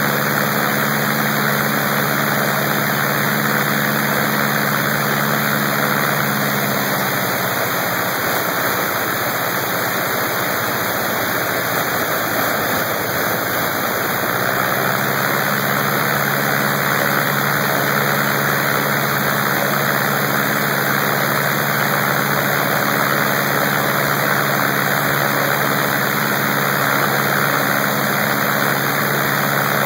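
Lycoming R-680 nine-cylinder radial aircraft engine running on a test stand with its propeller turning, a loud, continuous run. Its low engine note wavers for several seconds in the middle, then steadies again.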